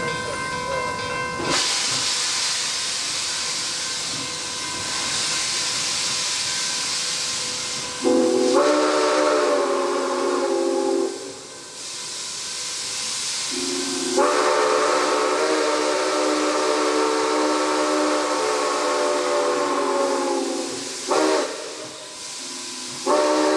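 Nickel Plate Road 765, a 2-8-4 Berkshire steam locomotive, hissing loudly as steam vents from its cylinder cocks, while its chime steam whistle sounds the grade-crossing signal: two long blasts, a short one, and a long one starting near the end.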